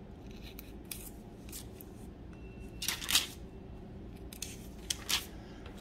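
A hand turning the thin pages of a study Bible: light paper rustling, with one louder swish of a page turning about three seconds in.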